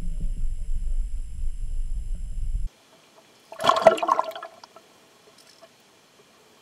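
Low rumble of water moving against an underwater camera, cut off abruptly; about a second later a short, loud bubbly splash of water churning near the surface, heard from underwater.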